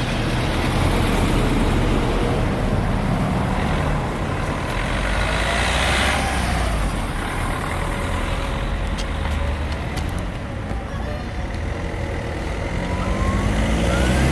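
Road traffic passing close by, led by a truck or bus engine, with one vehicle's tyre noise swelling and fading about six seconds in and an engine climbing in pitch near the end as a vehicle pulls away.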